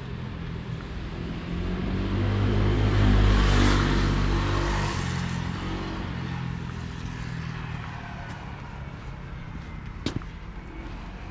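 A motor vehicle driving past, its engine and tyre noise growing to a peak about three seconds in and then slowly fading away.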